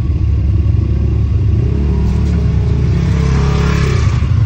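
Side-by-side UTV engine heard from inside the cab, running and revving up, its pitch rising then holding. A rush of hissing noise swells about halfway through and fades near the end.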